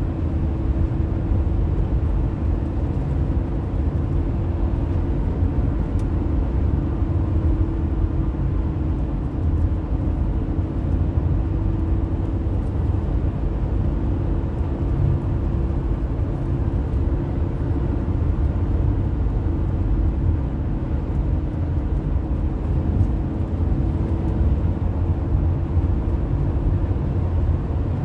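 Car driving on a freeway, heard from inside the cabin: a steady low drone of tyres on the road and the engine, with a constant hum running through it.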